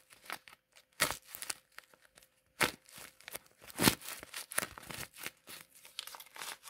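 A handmade paper squishy shaped like a chocolate bar being squeezed: its paper crunches and crackles in a string of sharp crinkles, loudest about four seconds in.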